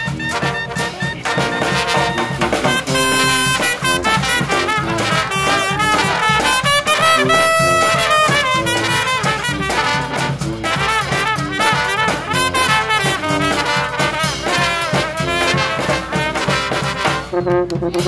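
Street brass band playing a tune: trumpet, clarinet, trombone and sousaphone over bass drum and snare drum.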